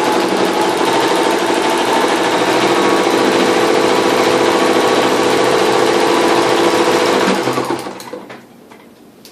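1970s Sears Kenmore Model 1813 zigzag sewing machine running steadily at speed, stitching a zigzag buttonhole. It slows and stops about eight seconds in.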